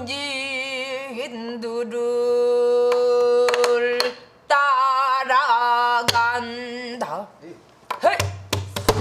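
Pansori singing: a woman's voice holding long, wavering notes in two phrases. It is accompanied by strokes on a buk barrel drum, one about six seconds in and two close together near the end.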